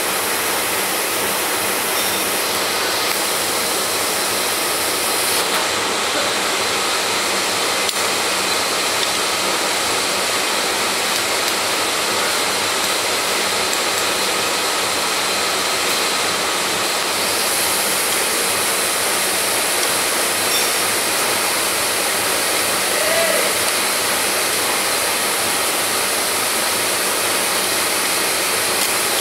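Radial drilling machine running: a steady, even whirring hiss from its motor and gearbox.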